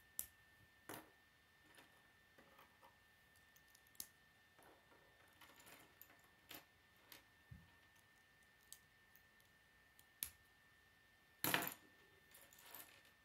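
Small plastic K'nex pieces clicking as they are snapped together and set down on a wooden tabletop: scattered sharp clicks, with a louder clatter near the end.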